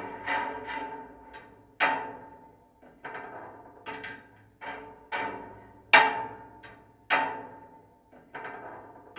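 Old footbridge struck with about a dozen sharp knocks at an uneven pace. Each knock rings and echoes away over about a second, with one ringing tone carrying through; the loudest comes a little past the middle.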